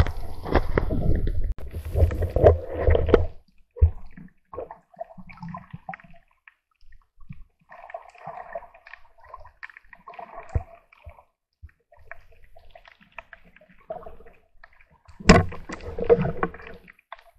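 Underwater sound of a spearfishing dive. Water sloshes and gurgles around the camera for the first three seconds, faint clicks and crackles fill the quieter middle, and a sharp knock with a rush of water comes near the end.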